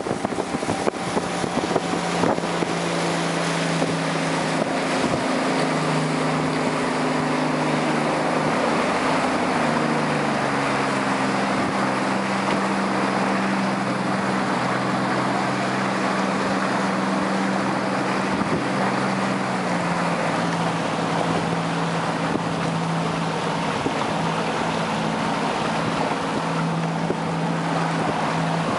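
Motorboat engine running steadily underway, its pitch shifting a few times as the speed changes, with wind and water rushing past.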